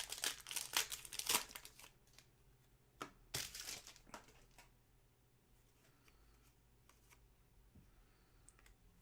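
Trading-card pack wrapper being torn open and crinkled: rustling and tearing for the first second and a half and again from about three to four seconds in, then only faint handling.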